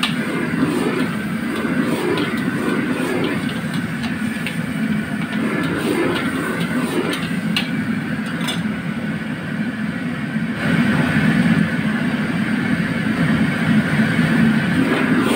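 Steady rush of a gas wok burner, with crabs in chili sauce sizzling in the wok as they are stirred with a metal ladle. There are occasional clinks of the ladle against the wok, and it gets a little louder about ten seconds in.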